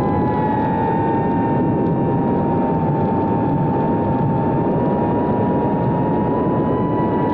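GEPRC Cinelog 30 FPV cinewhoop drone in flight, its brushless motors and propellers giving a steady high whine over a rush of noise, with the pitch wavering slightly.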